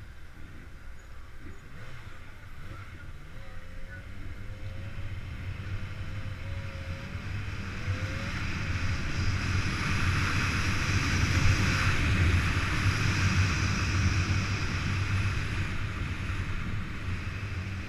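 Motorcycle running on the move, with wind rushing over the microphone; engine and wind noise build from about six seconds in, peak in the middle and ease a little near the end.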